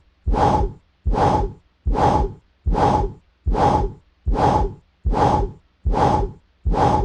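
Auscultation recording of an arterial bruit: a whooshing murmur that comes with each heartbeat, about 75 a minute, each whoosh about half a second long with silence between.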